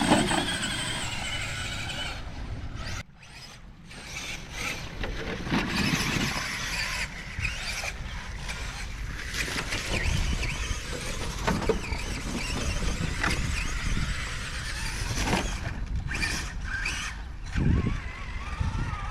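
Brushless electric motor of a Traxxas Summit RC truck whining, its pitch rising and falling with the throttle in uneven surges; it falls away briefly about three seconds in.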